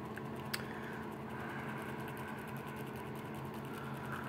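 Quiet room tone: a steady low hum, with one short click about half a second in.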